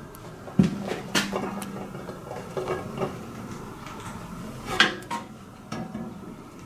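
A few scattered sharp knocks and clatters of wood and metal, the first and loudest leaving a low ring for a second or so, as a wooden board holding a row of hanging balls is handled and drawn away to release them.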